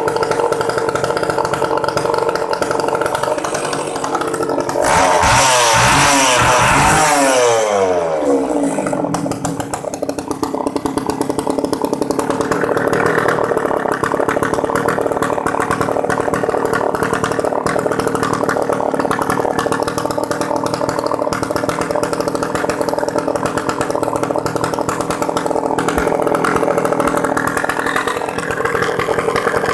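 Makita E2835 two-stroke chainsaw running with its bar and chain off, in a test run after cleaning. It idles, is revved hard once about five seconds in, falls back to idle by about eight seconds, then idles steadily. The saw runs well.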